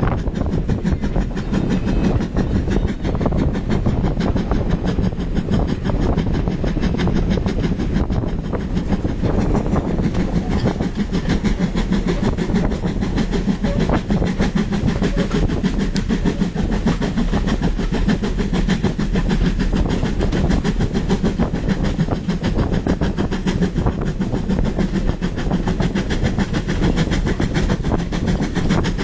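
Steam train hauled by GWR 4200-class 2-8-0 tank locomotive No. 4277, heard from an open carriage window: a steady rumble of the carriages running on the rails, with rhythmic clicking of the wheels over the track.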